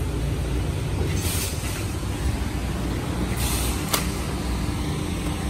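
Steady low rumble of road traffic, with two short hisses and a sharp click about four seconds in.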